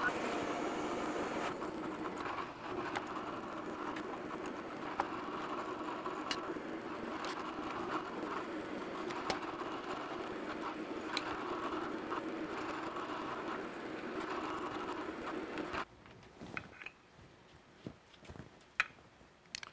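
Milling machine spindle running as a number 10 twist drill bores holes into a metal cylinder, with scattered small clicks. The machine stops about three-quarters of the way through, leaving only faint clicks and scrapes as the chips are brushed off.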